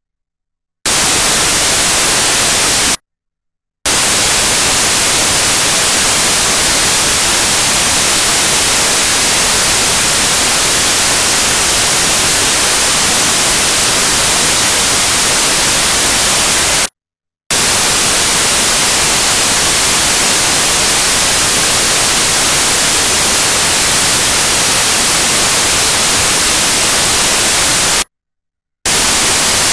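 Loud, steady white-noise static hiss. It starts abruptly about a second in and cuts out to dead silence three times, each time for less than a second.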